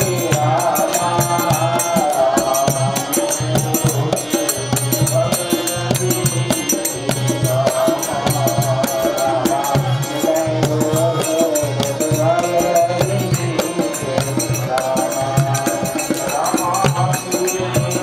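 Devotional hymn singing (bhajan) with a steady beat of about one pulse a second and jingling percussion.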